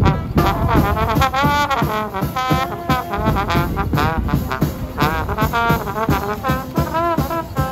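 Street jazz band playing: a trombone carries the melody with wavering, bending notes, with a saxophone and a drum kit keeping a steady beat.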